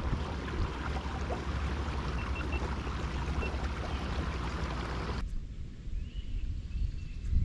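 Steady rush of water along a moving kayak's hull, with low rumble on the microphone. About five seconds in it cuts off abruptly to a much quieter background with a few faint bird chirps.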